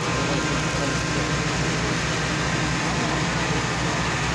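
A large engine running steadily: a constant low drone with a wash of noise over it, not changing in pitch or level.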